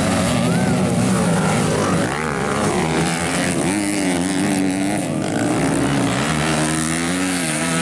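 Several motocross dirt bike engines racing, their pitch rising and falling as the riders throttle on and off through the turns.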